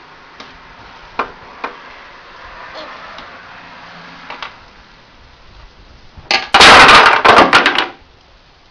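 Toy blocks clicking now and then as they are handled, then near the end a loud clatter of many blocks knocking together for about a second and a half as the stacked block structure falls down.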